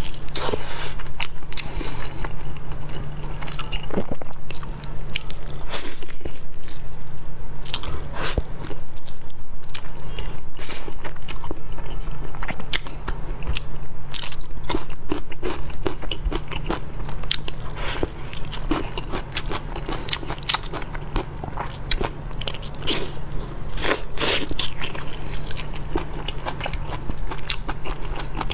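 A person biting and chewing braised meat, with many small, irregular mouth clicks and smacks.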